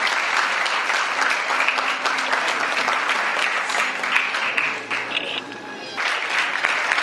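Audience applauding: many hands clapping together, dipping briefly about five seconds in, then picking up again.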